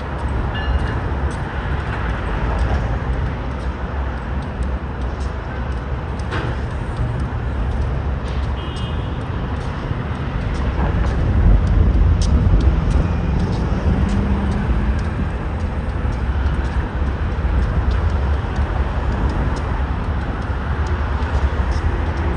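Steady low rumble of a heavy vehicle's engine, swelling a little about halfway through, with a few faint clicks and a short low hum near the middle.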